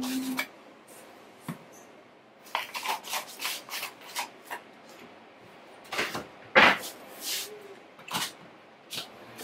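Scattered clatters, knocks and rubbing of household items being handled, with one sharp knock a little after six seconds in.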